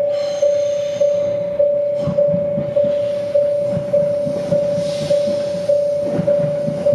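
Japanese level-crossing warning bell ringing, single-pitched strikes repeating at a little under two a second, each fading before the next. Underneath, an approaching train rumbles on the rails and grows louder, with a hiss rising near the end.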